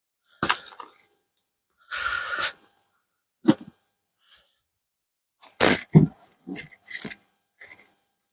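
A series of brief rustles and knocks with silent gaps between, from spent potato plants and compost being handled at a grow bucket.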